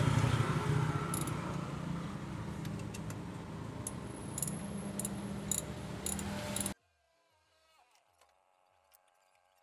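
Metal clinks and clicks of a socket wrench and extension bar loosening the throttle body screws, spaced irregularly over a steady low background hum. The sound cuts off suddenly about two-thirds of the way through, leaving only faint background music.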